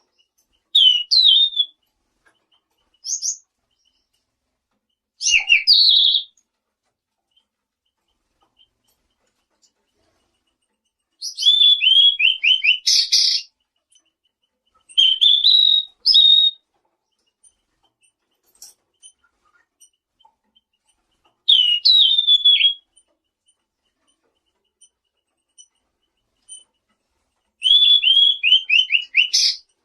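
Selendang biru (tledekan biru) songbird singing: about seven short, high whistled phrases of sliding and quickly descending trilled notes, with pauses of a few seconds between them.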